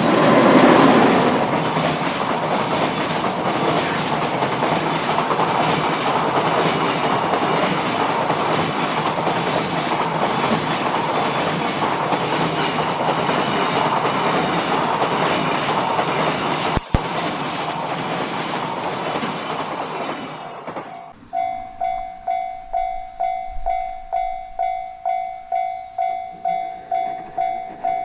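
A train passing over a Japanese level crossing, a steady rush and rattle of wheels on rail that ends sharply about two-thirds of the way in. The crossing's warning bell is then heard ringing on its own, a repeated pure-toned ding about one and a half times a second.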